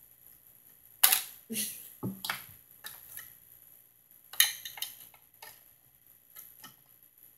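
Light plastic clicks and knocks from the pieces of a Peppa Pig House playset being handled and fitted into place, such as the bunk bed ladder and figures. About ten short clacks come at uneven intervals, the loudest about a second in and about four and a half seconds in.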